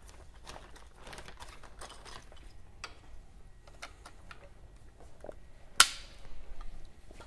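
Plastic modeling blocks handled and twisted together, giving a scatter of light clicks and one sharp snap about six seconds in.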